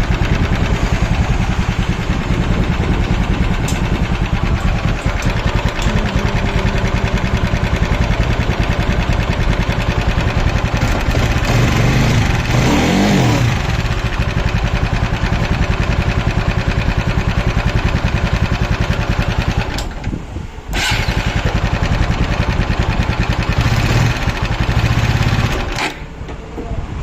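TVS Apache 200cc single-cylinder engine running, with the abnormal 'kat-kat' tapping the mechanic is pointing out even though the piston is new. It is revved up and back down once about twelve seconds in, and its sound dips briefly twice later on.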